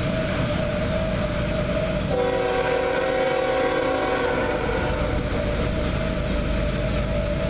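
An approaching diesel locomotive's air horn blows one long chord of several notes, starting about two seconds in and lasting nearly three seconds, over a steady low rumble. It is the horn signal sounded as the train nears a grade crossing.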